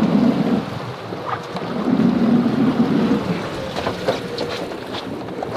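Wind gusting on the microphone over water sloshing and splashing along the side of a moving fishing boat, swelling twice.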